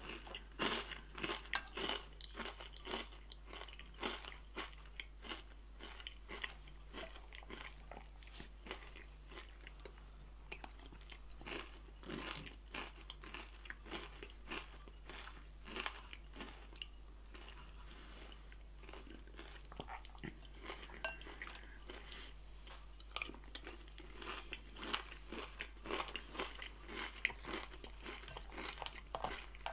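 A person chewing crunchy food close by, a quick, uneven run of crisp crunches that thins out for a few seconds past the middle.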